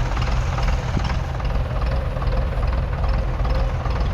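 1951 Nuffield Universal DM4 3.4-litre four-cylinder diesel tractor engine running steadily under load while pulling a two-furrow mounted plough through the ground.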